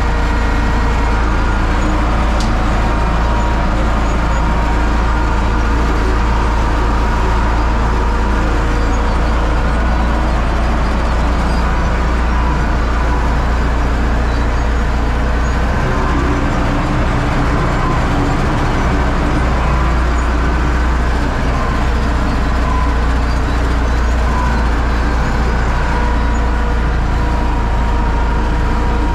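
Universal U650 tractor's four-cylinder diesel engine running steadily, pulling a seed drill at work.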